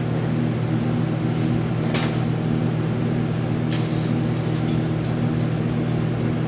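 A steady low machine hum, with a few light clicks about two seconds in and again around four to five seconds in.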